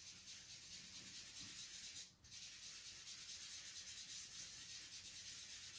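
Faint, steady rubbing of a dental cotton roll blending soft oil pastel on heavy smooth paper, working dark into light, with a brief pause about two seconds in.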